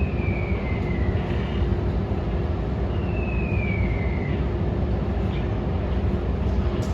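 Steady low mechanical rumble with a constant hum, and two short falling whistles, one at the start and one about three seconds later.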